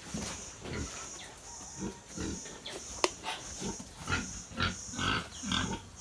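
Domestic pigs grunting, a run of short irregular grunts, with one sharp click about three seconds in.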